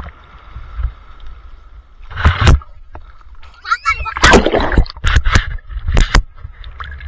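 Seawater splashing and sloshing against an action camera held at the surface of the waves, with a low rumble of water buffeting the microphone. Loud splashes come about two seconds in and several more between about four and six seconds in.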